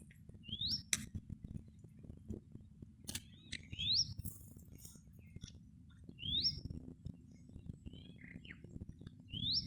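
A bird calling: four short whistled notes, each sweeping sharply upward, spaced roughly three seconds apart, over faint low rustling and scattered clicks.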